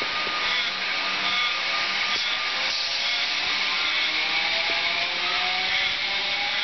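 Comeng electric suburban train moving off along the platform: a steady rush of wheels on rail, with a motor whine that rises slowly in pitch as the train gathers speed.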